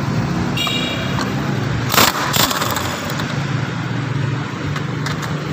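Auto repair shop background: a steady low hum, a short high tone about half a second in, and two sharp knocks about two seconds in.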